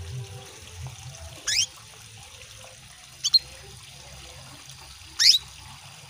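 Female canary call notes: short chirps sweeping downward in pitch, one about a second and a half in, a quick double note past three seconds, and another near the end, a female calling to draw a male into song. Steady trickling water runs underneath.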